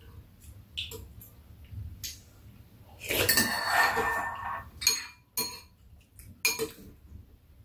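Metal spoons and chopsticks clinking and scraping against ceramic bowls during a meal: scattered light clicks, a louder stretch of clatter about three seconds in, then a few sharp ringing clinks.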